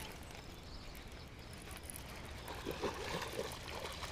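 Quiet outdoor ambience with a steady low wind rumble on the microphone, and faint small splashes in the second half from a hooked fish thrashing at the water's surface.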